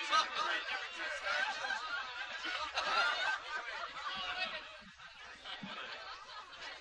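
A roomful of people laughing and chattering together, the laughter dying down after about four and a half seconds into quieter talk.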